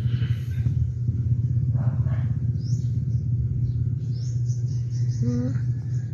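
A steady low rumble, with faint high chirps and a short pitched whine about five seconds in.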